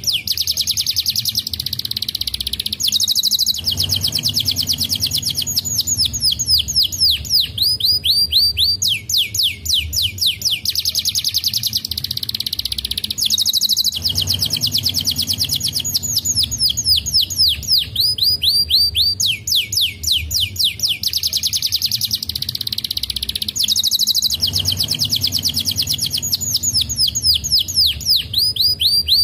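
Domestic canary singing: long rolls of rapid, evenly repeated high trilled notes, changing from one trill to the next with brief breaks. The same sequence of trills comes round again about every ten seconds.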